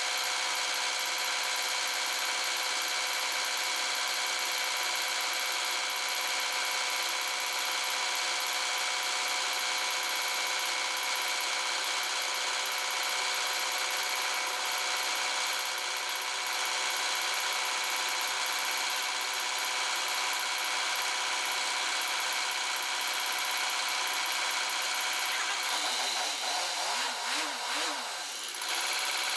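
Land Rover 300Tdi 2.5-litre four-cylinder turbodiesel idling steadily with a constant chirping, a fault the owner cannot trace: wetting the timing belt made no difference. Near the end a wavering, up-and-down sound briefly joins in.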